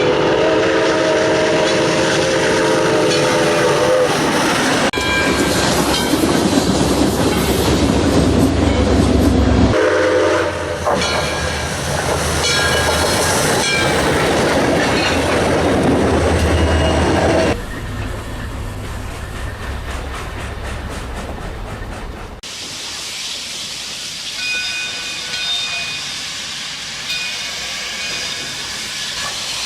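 Edited-together railway sound effects: a locomotive horn sounds a chord of several notes for about four seconds. Then a run of spliced train-running clips follows, the sound changing abruptly several times.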